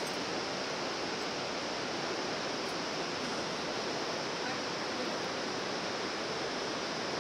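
Steady, even rushing of the Bhote Koshi river running through the gorge below.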